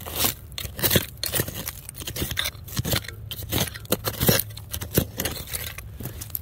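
A metal hand digging tool scraping and digging through dirt, rocks and debris in quick repeated strokes, about two to three a second.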